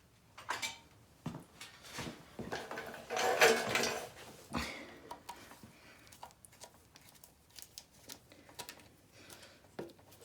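Scattered clicks and clinks of hand tools and small metal parts being handled, with a louder scraping rustle about three seconds in.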